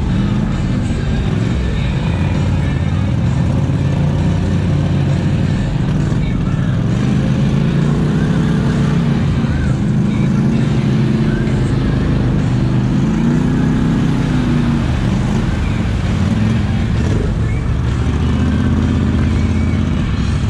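ATV engine running under load, its revs rising and falling; the machine is a Polaris Sportsman 850 with its 850 cc parallel twin.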